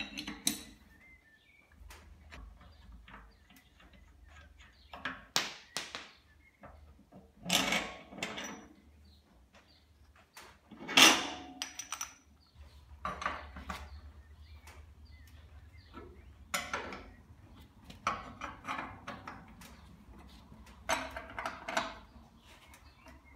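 Scattered metal clanks, knocks and scrapes from a steel boiler firehole door and its fittings being worked and unbolted with a spanner. The loudest knock comes about eleven seconds in.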